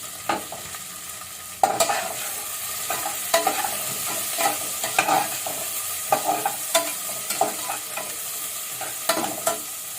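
Onions and spices frying in oil and ghee in an open pressure cooker, a steady sizzle, while a spoon stirs and scrapes against the metal pot, knocking frequently from about two seconds in.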